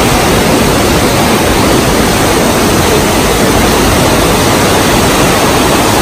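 Loud, steady rush of water from the Chegem waterfalls and the white-water river beneath them.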